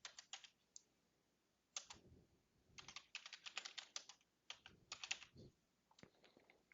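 Faint typing on a computer keyboard: short key clicks in irregular bursts as an address is entered.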